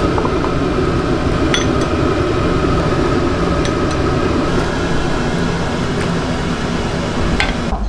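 A metal ladle clinks lightly against a ceramic soup bowl a handful of times as chicken soup is ladled in, over a steady mechanical hum like a kitchen fan.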